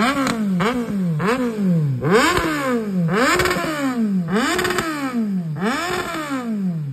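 A large naked sport motorcycle's engine being revved in neutral in quick repeated throttle blips, about ten in seven seconds. Each blip jumps sharply up in pitch and falls back more slowly, and a few are held briefly at the top.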